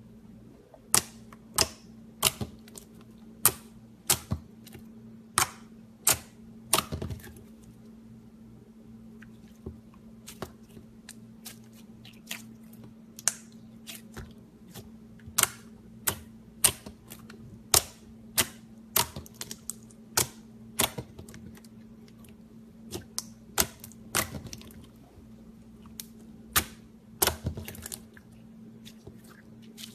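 Slime being pressed and poked, giving sharp clicking pops at an irregular pace of about one or two a second, over a faint steady hum.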